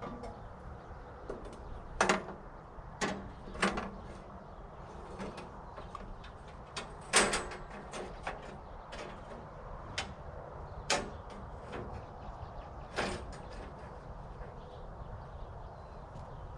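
Irregular knocks and clatters, half a dozen louder ones among lighter taps, over a low steady rumble.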